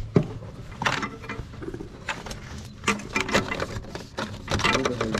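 Handling noise: irregular clicks, taps and rustles, with a sharp knock just after the start.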